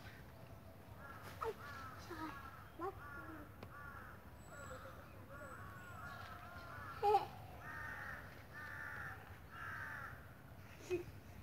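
Crows cawing over and over, a dozen or more short caws in runs, with a few sharper single calls mixed in, the loudest about seven seconds in.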